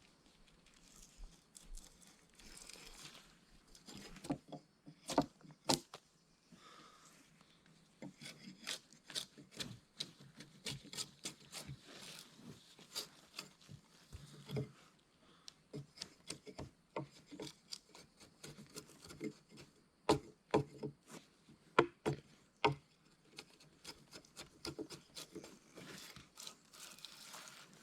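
Irregular wooden knocks, cracks and rubbing, many sharp ones at uneven spacing, the loudest a few seconds in and again about two-thirds of the way through.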